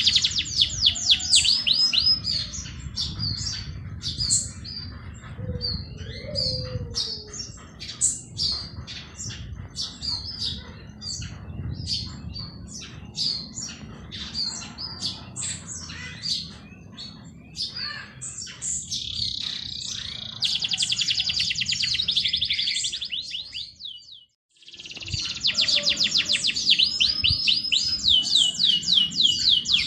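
Several songbirds chirping and singing, with bursts of fast repeated trills over a low rumble. About three-quarters of the way through, everything cuts out for a moment, then the birdsong resumes.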